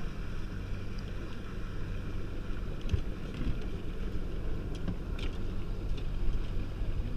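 Boat motor running steadily, with wind rumbling on the microphone and a couple of light knocks about three and five seconds in.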